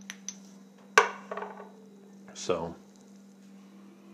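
A sharp knock about a second in as a small hard object is set down on a table top, followed by a short ringing rattle. A couple of faint clicks come just before it.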